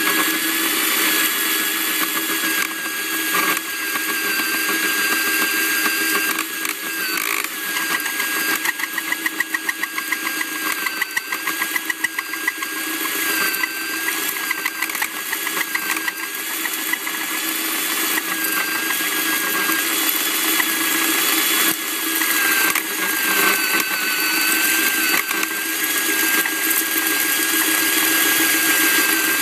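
Hand-held hammer drill turning a Diteq C-34 dry diamond core bit, grinding through reinforced concrete with the segments cutting into steel rebar. The motor's steady whine runs under the grinding, and about a third of the way through there is a stretch of fast, even pulsing.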